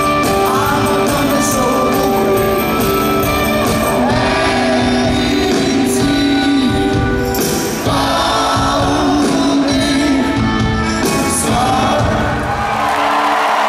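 Live rock band playing at full volume, electric guitars ringing over bass and drums with singing. Near the end the band stops and the low end falls away under a wash of crowd noise as the song finishes.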